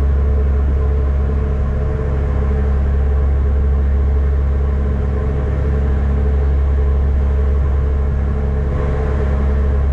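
Ferry engines running steadily: a loud, deep, constant drone with a steady hum above it.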